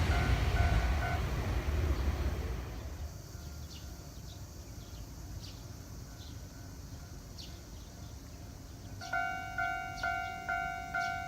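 A Keio Inokashira Line train rumbling over the level crossing dies away in the first three seconds as the crossing bell gives its last dings. After a quiet stretch, the railroad crossing's electronic warning bell starts ringing again about nine seconds in, an even ding about twice a second, signalling the next train's approach so the crossing closes again.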